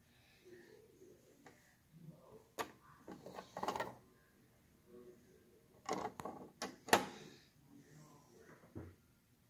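LEGO plastic bricks handled by hand: scattered clicks and knocks, with a short rattle a little before halfway and the sharpest knock about three quarters through.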